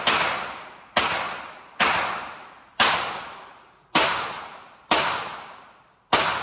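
Gunshots from a firearm fired at a steady pace, seven shots about a second apart, each sharp crack dying away over roughly a second.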